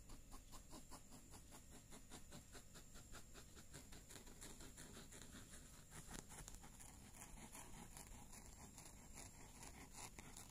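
Faint, rhythmic rasping of a kitten's tongue licking its fur while grooming, about four or five licks a second; the rhythm breaks up about six seconds in.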